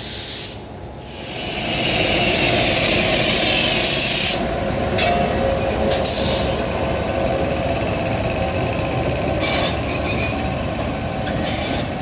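Indian Railways WAP7 electric locomotive rolling slowly past close by, its wheels squealing on curved track. A loud hiss builds about a second in and eases off around four seconds, and thin squeal tones come and go after it.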